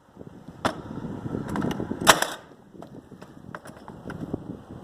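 Sharp wooden knocks and bangs from hardwood floorboards being worked. There are two hard strikes about a second and a half apart, the second the loudest, with lighter clicks and shuffling of boards around them.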